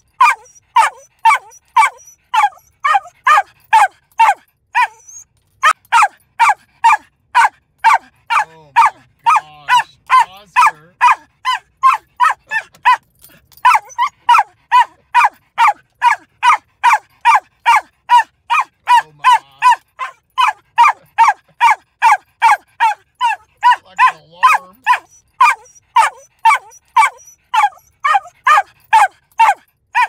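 Small dog barking nonstop in sharp, high yaps, about three a second, with a short break about five seconds in.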